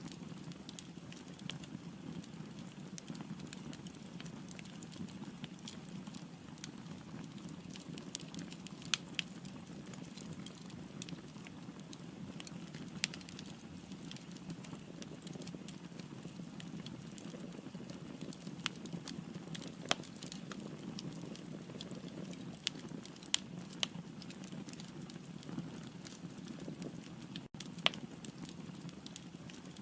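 Firewood burning in a fireplace: a steady low rumble of flames with scattered, irregular sharp crackles and pops.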